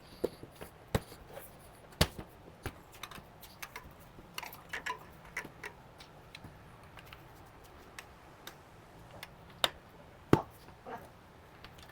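Irregular sharp clicks and light knocks of hand tools and metal parts being handled during bike tire and wheel work, with two louder knocks, one about two seconds in and one near the end.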